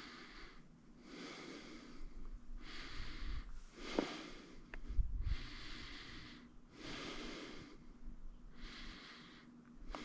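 A person breathing hard and rhythmically close to the microphone, a steady run of hissing breaths in and out. A couple of short knocks come around the middle.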